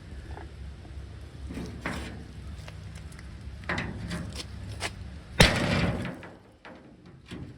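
Light knocks and handling of metal, then about five seconds in one loud hammer blow on the truck bed's sheet steel, knocking off what is left of a spot weld drilled out with a rotobroach cutter.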